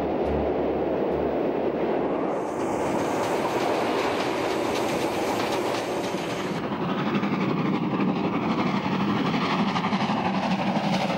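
Steam train running at speed along the track: a steady, loud rush of running noise that loses some of its hiss about six and a half seconds in.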